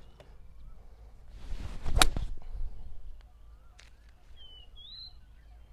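A golf iron swing: a rising swish, a single sharp crack as the clubhead strikes the ball about two seconds in, then a fading whoosh. Small birds chirp in the second half.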